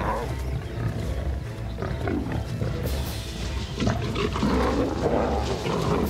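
Several lions snarling and growling as they fight, in repeated bursts, with a low music score underneath.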